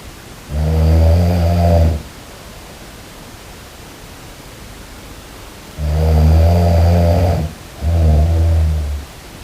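A person snoring: three loud, low, rasping snores, the first lasting about a second and a half, then two close together near the end, with a faint steady hiss between them.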